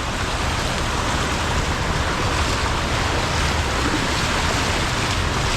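Swollen river in flood rushing over its burst banks: a steady, even roar of fast-moving water.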